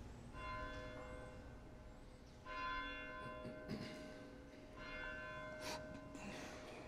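A bell is struck three times, about two seconds apart, and each stroke rings on and fades. It is faint. This is the bell rung at the elevation of the host during the consecration at Mass.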